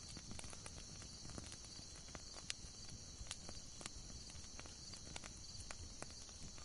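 Campfire crackling: irregular small pops and snaps over a soft hiss, with one sharper pop about two and a half seconds in.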